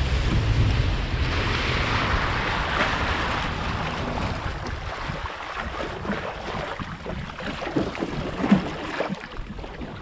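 Small open boat under way through choppy water: engine rumble, spray off the hull and wind on the microphone. The rush eases over the first half as the boat slows, leaving water sloshing and scattered knocks, the loudest a bit past eight seconds in.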